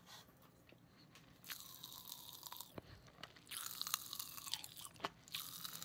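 Volcano popping candy crackling and popping in a mouth held right at the microphone, as the gas trapped in the sugar bursts free: a fizzy crackle of tiny pops that starts about a second and a half in and comes in irregular spurts.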